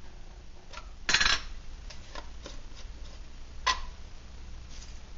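A few light metal clicks and clinks as a titanium backpacking stove and a brass alcohol burner are handled and fitted together on a workbench; the loudest comes about a second in, and one nearly four seconds in rings briefly.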